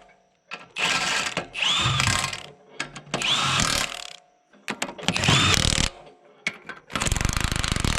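Handheld power tool run in five short bursts, each starting with a rising whine; the last burst, near the end, is a rapid hammering rattle like an impact wrench.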